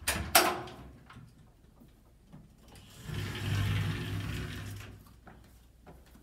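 Two sharp metal clanks, then about three seconds in a rattling slide of about two seconds as a collapsible metal scissor gate on a small elevator is pulled open.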